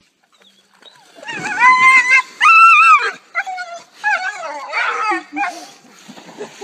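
A dog whining in a string of high, wavering cries, the first two long and the loudest, then several shorter ones.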